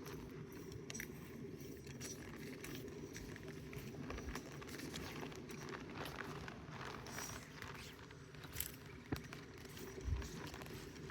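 Footsteps and scattered knocks on creekside rocks over a steady low rush of mountain creek water, with a few louder knocks near the end.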